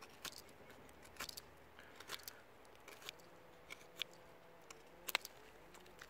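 Victorinox Hunter XT pocket-knife blade shaving a wooden stick: a dozen or so faint, short scrapes and clicks scattered irregularly through the few seconds.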